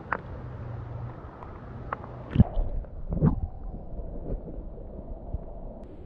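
Creek water sloshing around a camera held at the water's surface, broken by a few sharp knocks of stones clattering as rocks are shifted; the loudest knocks come about two and a half and three seconds in.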